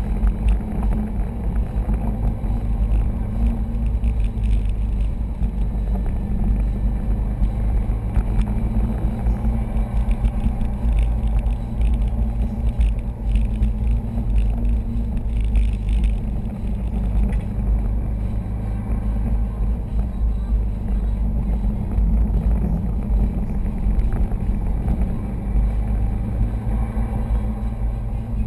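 Cabin noise inside a 2011 Subaru STI at about 40 mph with the windows closed and the air conditioning on: a steady low rumble of engine and road.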